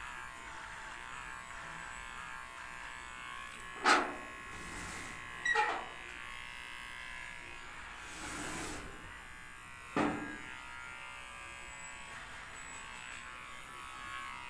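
Electric hair clippers running with a steady buzz while shaving a head close to the scalp. Three sharp knocks, the loudest sounds, come about four, five and a half and ten seconds in.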